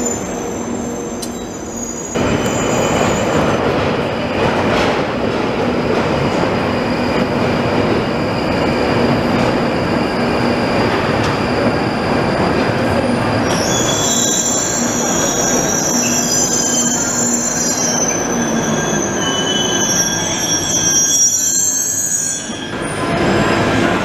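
London Underground tube trains running along platforms: a continuous rumble of steel wheels on rail with a steady hum. About halfway through, high-pitched wheel squeal sets in. Near the end a whine rises in pitch.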